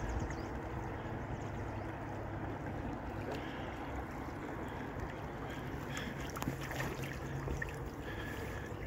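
Steady rush of flowing river water lapping around a drifting boat, with a few light knocks about six to seven seconds in.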